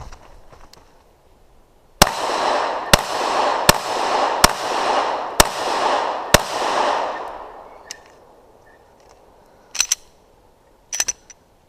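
Six shots from a Smith & Wesson M&P 9mm pistol, a little under one a second, each ringing out in a long echo. Near the end come a few short, sharp clicks.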